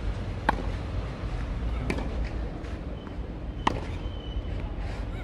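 Tennis balls struck with rackets during a baseline rally: sharp pops, two loud near hits about three seconds apart with a fainter far hit between them. A steady low rumble sits under them.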